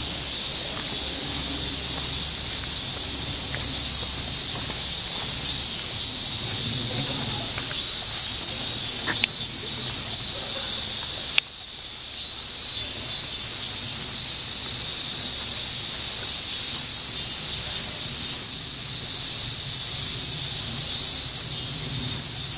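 Chorus of cicadas, a continuous high, sizzling hiss that stays steady throughout, broken by a sudden click and a brief dip about halfway through.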